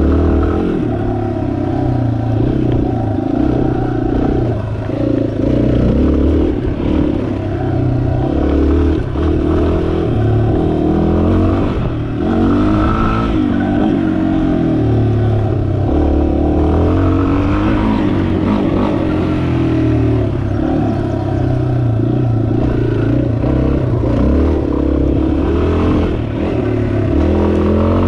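2019 Yamaha XT250's air-cooled single-cylinder four-stroke engine running under load, its pitch rising and falling several times as the throttle opens and closes.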